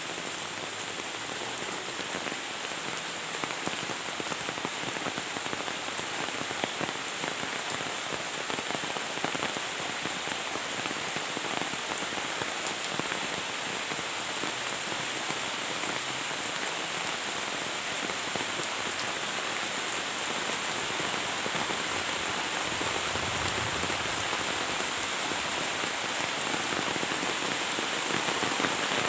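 Heavy rain falling steadily: a dense, even hiss of rain with countless small drop ticks, fairly hard, growing slightly louder toward the end.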